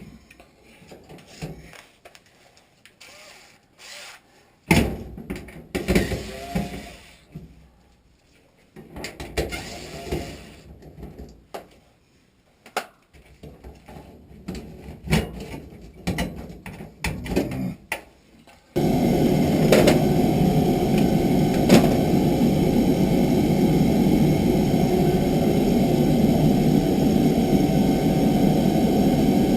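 Scattered clicks and knocks of hands working at the furnace, then about two-thirds of the way in an oil burner starts abruptly and runs steadily, a loud, even, low-pitched sound.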